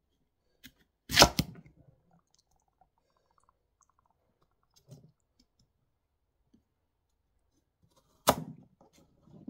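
Chef's knife chopping through squash and striking the cutting board: two sharp chops, one about a second in and one near the end, with faint knocks and rustling of the cut pieces between.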